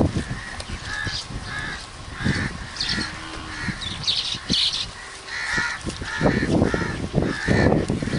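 Crows cawing over and over, short harsh calls about two a second, over scattered knocks; a loud low rumbling noise comes in from about six seconds in.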